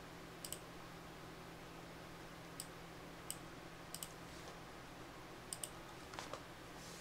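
Faint, sharp clicks of a computer mouse, about ten in all, several in quick pairs like double-clicks, over a low steady hum.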